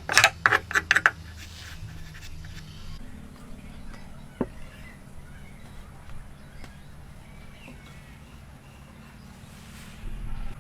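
Hand tools working wood: a quick run of about six sharp wooden knocks in the first second, then a faint low hum with a single click a little over four seconds in.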